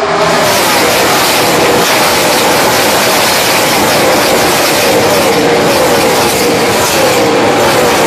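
NASCAR Nationwide Series stock cars' V8 engines at full throttle as the pack passes down the straight: a loud, continuous din, with engine notes falling in pitch again and again as car after car goes by.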